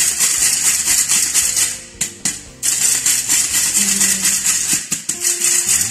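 Stainless steel flour sifter being worked over a bowl, its agitator and mesh giving a fast, continuous rattle as flour falls through. The rattle breaks off briefly about two seconds in.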